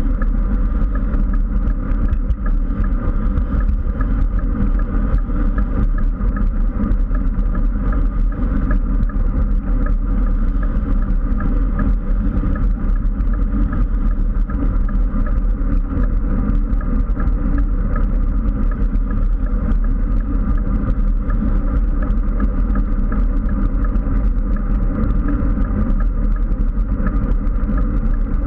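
Steady wind rush buffeting a bike-mounted GoPro's microphone, with low rumble from the tyres on the road, as a road bike rides along at speed.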